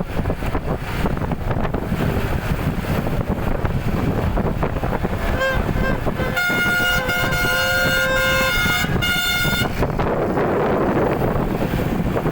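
Steady low rumble of a moving vehicle, with a loud multi-tone horn sounding for about four seconds in the middle, broken by a short gap near its end.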